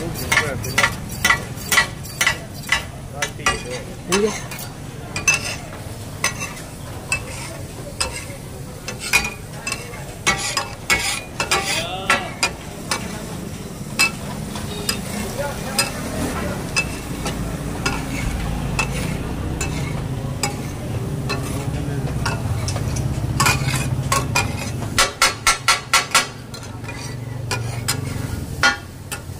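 Two metal spatulas clattering and scraping on a large flat steel griddle (tawa) as food is chopped and tossed, over steady sizzling. Quick runs of strikes come at the start and again near the end, with a stretch of mostly sizzle between them.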